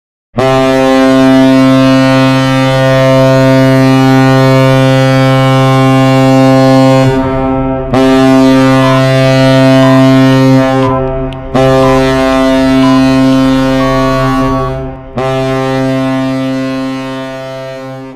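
NHL arena goal horn, a deep ship-type air horn, sounding in long blasts that run almost into one another: the first about seven seconds long, then three more of about three and a half seconds each, the last fading out.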